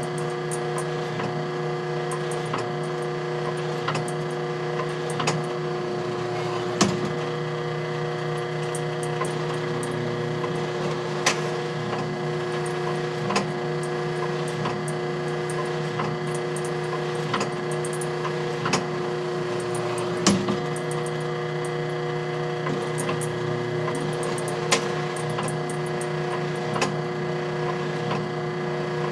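Vintage black-and-white photobooth's developing mechanism running: a steady machine hum with sharp clicks and knocks from the mechanism every second or two, two of them louder than the rest.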